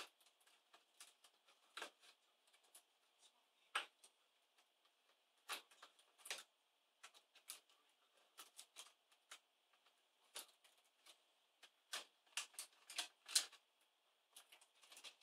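Faint, irregular small clicks and taps of plastic and metal laptop parts being handled and unscrewed while an Asus K55VJ laptop's motherboard is freed from its chassis. The clicks come closer together a few seconds before the end.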